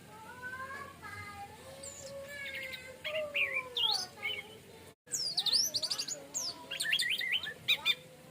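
Orange-headed thrush singing a varied song: slow gliding whistles at first, then quick, high sweeping notes about three seconds in. The sound cuts out for an instant about five seconds in and comes back as a fast, busy run of high sweeping notes.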